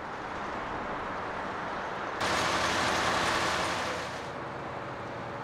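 Steady engine hum over a low rumble, with a sudden loud hiss about two seconds in that lasts about two seconds and then fades.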